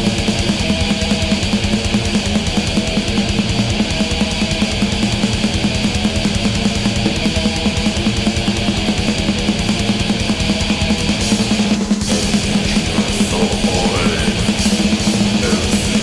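Heavy rock music with distorted electric guitar and drums, playing steadily, with a brief break about twelve seconds in.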